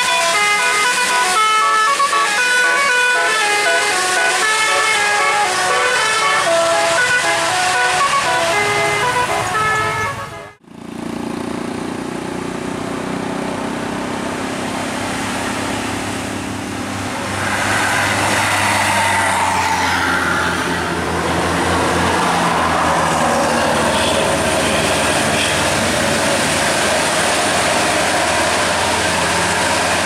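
A bus's multi-tone "basuri" telolet horn playing a tune of short stepped notes for about ten seconds, cut off abruptly. Then a tour bus's engine is heard running as it comes around the bend, with tyre and road noise and some blurred horn-like tones partway through.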